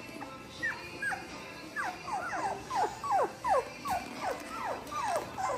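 Three-week-old Labrador puppy whining: a run of more than a dozen short, high squeals, each falling in pitch, starting about half a second in and coming two or three a second.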